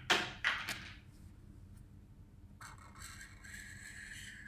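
A few sharp clicks and taps in the first second. From about two and a half seconds in, a felt-tip marker's nib scrapes steadily along paper as a grey marker is laid along an edge of the drawing.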